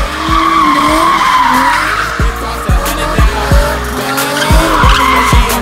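Hip-hop track with deep, booming bass kicks that drop in pitch and a synth melody, mixed with the screech of a drifting car's tyres.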